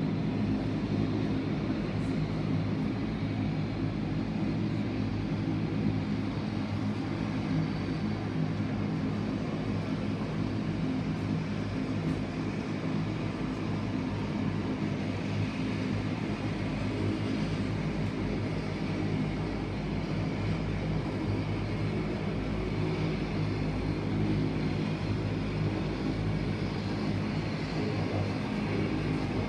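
De Havilland Canada Dash 8-300 turboprop taxiing, its Pratt & Whitney Canada PW123 engines and propellers running at low power with a steady hum made of several low tones, heard through terminal window glass.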